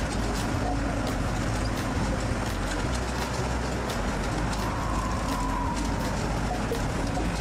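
Heavy railway-construction machinery running: a steady low engine rumble with regular faint clicks or clanks over it.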